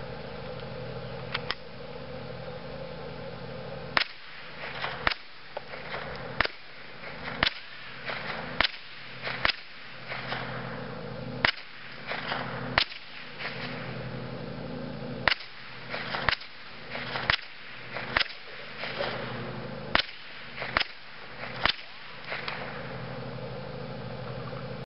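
Gunshots at a shooting range: about twenty single sharp cracks, starting about four seconds in and coming roughly one a second at an uneven pace, over a steady low hum.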